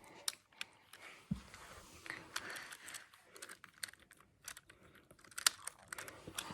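A small plastic fidget toy being twisted and turned by hand, giving faint, irregular clicks and clacks.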